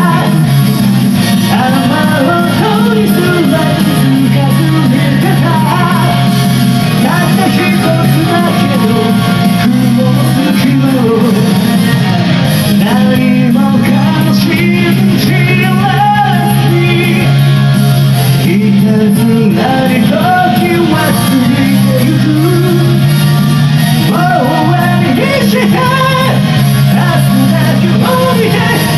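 Heavy metal song with a voice singing high over a loud band backing track.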